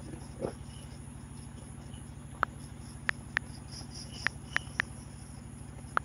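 Seven sharp clicks of typing on an iPhone's on-screen keyboard, beginning a couple of seconds in. Under them runs a steady low hum with an even pulse from a machine running beside a fish pond, and a high, steady chirring of crickets.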